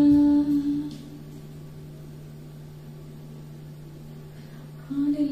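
A woman's held sung note through a microphone and PA ends about a second in, leaving a steady low hum; near the end her voice comes back on another held note.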